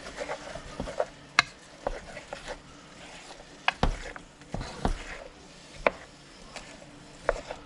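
Wooden spoon stirring food in a metal saucepan, knocking and scraping against the pot's sides and bottom in irregular clicks and taps.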